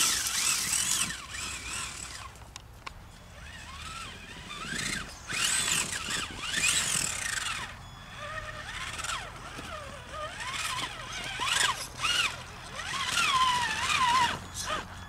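Traxxas Summit RC truck's brushed 775 electric motor and gear drivetrain whining in bursts, the pitch rising and falling as the throttle is worked. Dirt and stones crunch and spray under the tyres as it climbs the rocky slope.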